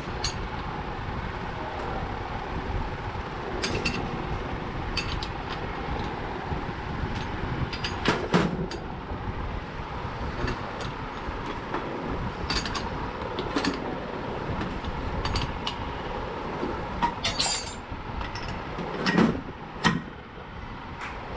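Scattered sharp metal clinks and knocks, as of tools and parts being handled, over a steady low rumble. The loudest knocks come about eight seconds in and twice near the end.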